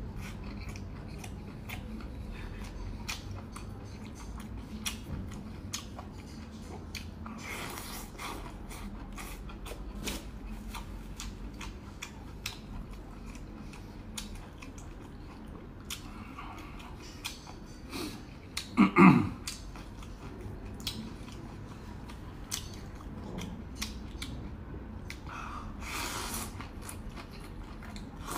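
A person eating a spicy hot pot up close: steady chewing with many small wet mouth clicks, and a few slurps of noodles and broth. The loudest is a short burst about two-thirds of the way through.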